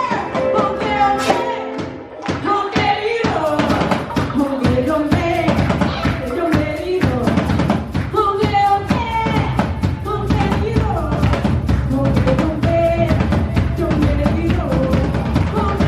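Live band music with a woman singing over drums and a bass drum beat; the music dips briefly about two seconds in, then the drums come back in and play on.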